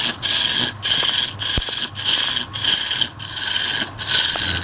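Turning chisel cutting into a large wooden blank spinning on a lathe: a rough scraping hiss in repeated strokes, a little under two a second, with short gaps between.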